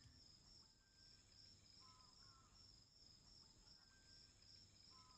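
Near silence: faint night ambience of crickets chirping in a steady, even trill.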